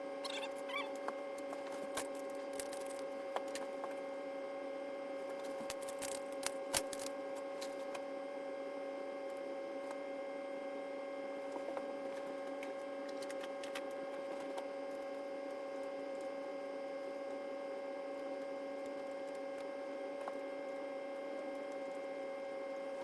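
A steady, even machine hum, with scattered light clicks and taps on top and a couple of louder knocks about six to seven seconds in.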